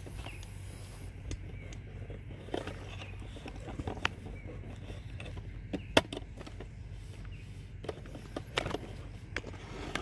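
Handling noise from a smartphone being moved about: scattered sharp clicks and scrapes over a low steady hum.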